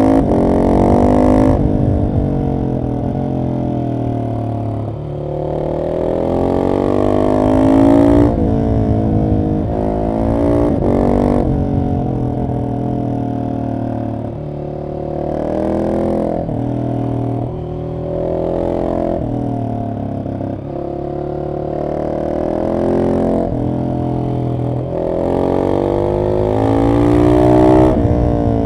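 Husqvarna 701 SM single-cylinder engine through an Arrow exhaust with the catalytic converter removed and the dB killer in. The engine pulls hard through the gears, its pitch climbing and then dropping sharply at each shift, again and again, with short easings of the throttle between.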